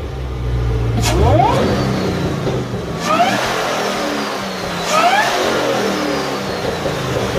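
Supercharged car engine revved three times, about two seconds apart. With each rev a high supercharger whine climbs sharply, then slides slowly down as the revs fall away.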